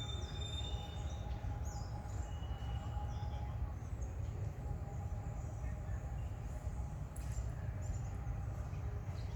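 Outdoor ambience: a constant low rumble, with scattered short high bird chirps and a faint steady high tone running under them.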